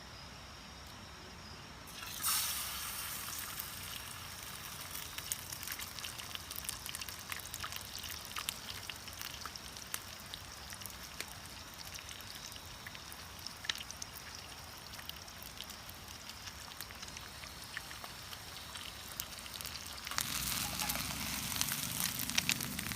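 Crickets chirping steadily, then about two seconds in a sudden loud sizzle as egg goes into hot oil in a pan, settling into steady frying with crackles and pops.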